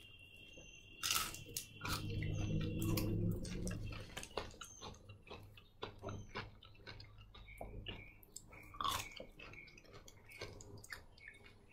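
Close chewing and biting of food, with scattered crunches and wet mouth clicks. A low murmur runs from about one to four seconds in.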